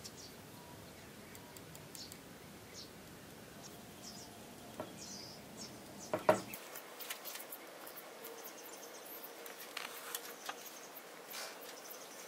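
Faint handling sounds of marking out a wooden paddle blank: short pencil scratches and small clicks of a tape measure against the wood. There is a sharper knock about six seconds in.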